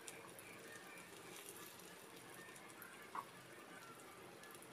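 Near silence: faint room hiss, with one light click about three seconds in.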